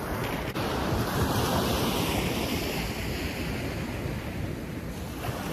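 Ocean surf breaking and washing up the beach, swelling about a second and a half in and ebbing again, with wind buffeting the microphone.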